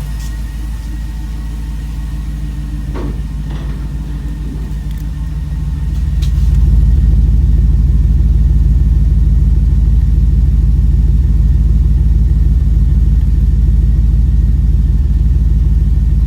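2006 Jeep SRT8's 6.1 Hemi V8 idling, with the slight chug of a cylinder 5 misfire on a cold engine. About six seconds in it gets louder and heavier in the low end.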